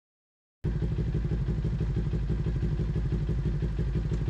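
Kawasaki Ninja 400 parallel-twin engine running steadily through a Two Brothers aftermarket exhaust. It cuts in abruptly after about half a second of silence.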